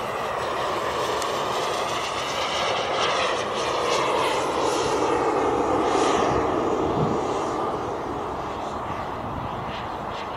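Turbine engine of a BVM Ultra Bandit radio-controlled jet flying past: a steady rushing roar that swells to its loudest about six seconds in, then fades.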